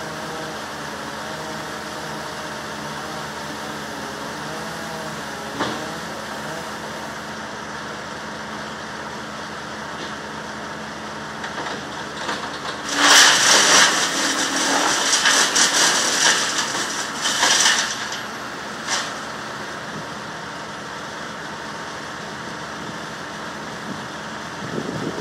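An engine runs steadily throughout. About halfway through, a loud rushing, crashing noise lasts roughly five seconds, followed by a short crack.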